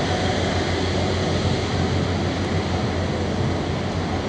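Airbus A330's twin Rolls-Royce Trent 700 turbofans at taxi power as the airliner rolls past, a steady rushing noise with a low hum underneath.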